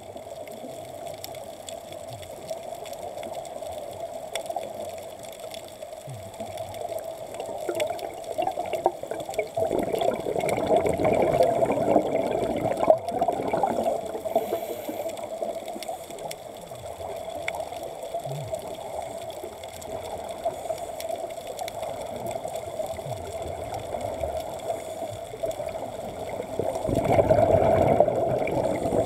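Underwater sound of scuba divers breathing through their regulators: exhaled air bubbling and gurgling over a steady hum. It swells louder about ten seconds in and again near the end, as a diver passes close by.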